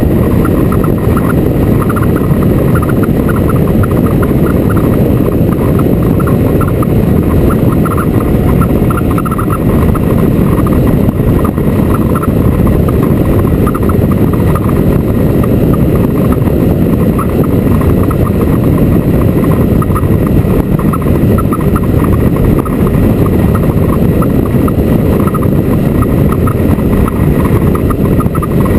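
Motorcycle under way at a steady speed: a loud, unbroken rush of wind and road noise, with the engine running underneath.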